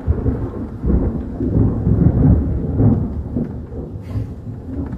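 Thunder from a close lightning strike rumbling loud and deep, swelling and easing in waves and dying down a little near the end.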